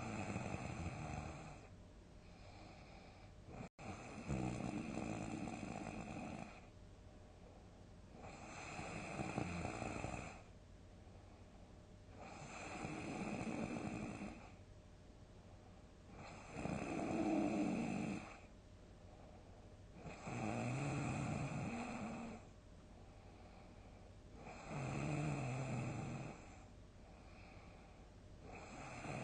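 A sleeping person snoring loudly and regularly: one long snore about every four seconds, each lasting around two seconds, with quiet breathing gaps between.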